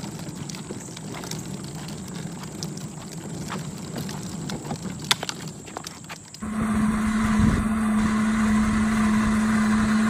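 Plastic toy wagon rolling over a concrete sidewalk, a rumble with many small irregular clicks and knocks from the wheels. About six seconds in this gives way abruptly to the louder, steady single-pitch hum of a child's battery-powered ride-on car's electric motor.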